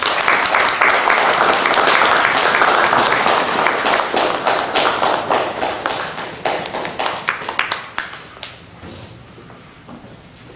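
Audience applauding, full at first, then thinning over several seconds into a few scattered claps.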